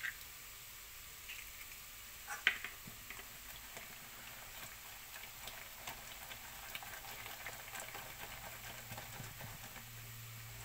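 Wire whisk beating an egg into pancake batter in a bowl: faint, rapid ticking of the wires against the bowl, after a single knock about two seconds in.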